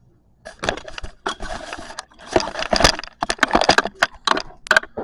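Hands handling small bicycle parts during assembly: a rapid, irregular run of clicks, knocks and light rattles, with two stretches of rustling.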